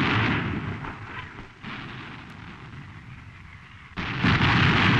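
Naval guns firing: the tail of one heavy gun blast fades over the first second or two into a rumble, then another blast comes about four seconds in.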